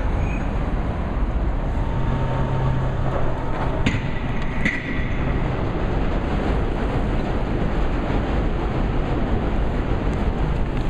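Steady loud rumbling noise with a low hum for a couple of seconds and two sharp clicks near the middle.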